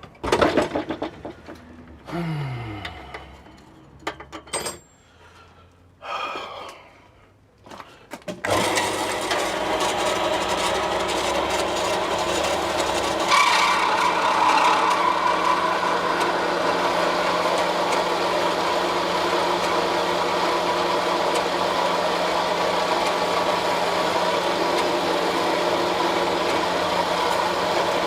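Metal-cutting band saw being worked on: scattered knocks and clatter for several seconds. About eight seconds in the saw starts and runs steadily, with a brief louder tone a few seconds after it starts.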